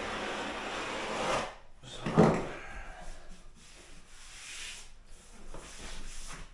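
Steady rasping and scraping against IsoTherm thermal liner on a wall as it is worked and trimmed, stopping about one and a half seconds in, then fainter rubbing.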